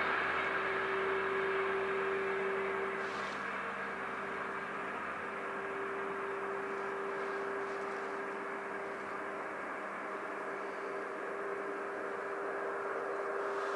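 A distant CC 72100 diesel locomotive and its train receding along the line: a steady far-off hum with one held tone, fading over the first few seconds and then holding low.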